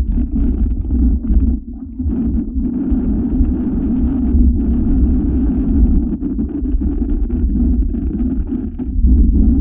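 Wind rumbling over the camera's built-in microphone on a moving motorcycle, a loud low buffeting that eases briefly about two seconds in.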